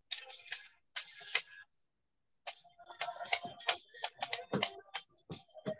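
Typing on a computer keyboard: an irregular run of quick key clicks, broken by a short silence about two seconds in.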